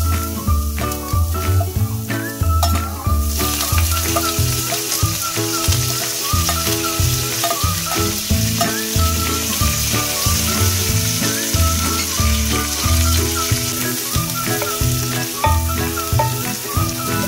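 Minced garlic and curry leaves sizzling in melted butter, the sizzle swelling about three seconds in as they are tipped into the pan, then stirred with a wooden spatula. Background music with a steady beat plays underneath.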